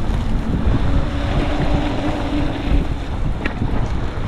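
Wind rushing over the microphone of a moving fat-tire e-bike, with a low rumble throughout. A faint steady hum starts just after the beginning and stops a little past the middle.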